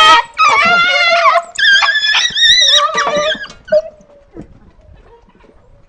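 Several dogs giving high-pitched, wavering whines and yelps that overlap, excited at being fed. The calls stop about three and a half seconds in, leaving only faint scattered sounds.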